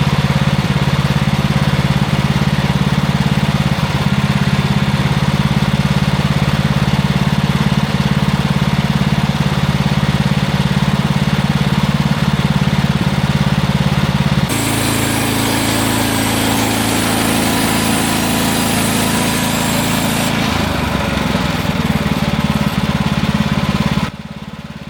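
The gas engine of a Woodland Mills portable bandsaw sawmill runs steadily while 1x4 boards are sawn from a pine log. The sound shifts abruptly about two-thirds of the way through and again later, and drops in level just before the end.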